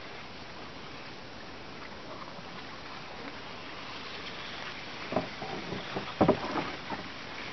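Steady hiss of outdoor background noise, then a cluster of irregular knocks and thumps about five to seven seconds in, the loudest just after six seconds.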